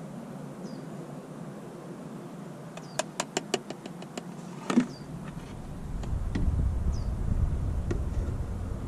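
Motor oil being poured from a plastic jug into an engine's oil filler: a quick run of clicking glugs about three seconds in, then a single louder knock. A low rumble follows near the end.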